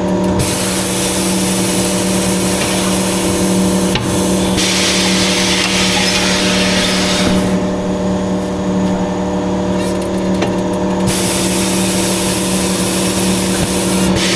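Pneumatic bead breaker on a tyre-changing machine hissing with compressed air in two long stretches, first at the start and again near the end, while breaking the tyre's bead, over a steady machine hum.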